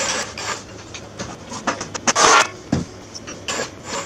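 Irregular knocks, clicks and scrapes of things being handled on a concrete garage floor, with a louder scrape about two seconds in.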